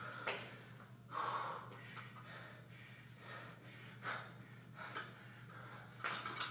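A man breathing hard and gasping from exertion, mid-workout between burpees and 135 lb hang power cleans. A few short knocks come as the barbell is gripped and lifted near the end.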